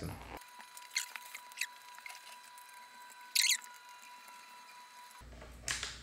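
Hand screwdriver working the captive base-plate screws of a G4 iMac: a few short, high squeaks and clicks, the loudest about three and a half seconds in, over a faint steady tone.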